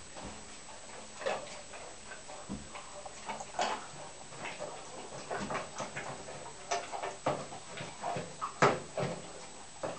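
Rhodesian Ridgeback eating dry kibble from a raised stainless-steel bowl: irregular crunches and clinks of food against metal, the loudest about eight and a half seconds in.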